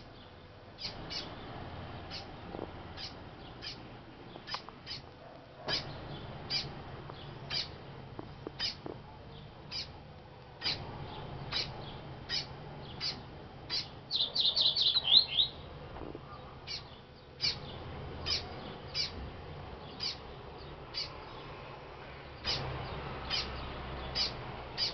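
Double-collared seedeater (coleiro) giving short, sharp chip calls about once or twice a second. A little past halfway there is a quick run of about eight rapid notes, the loudest part.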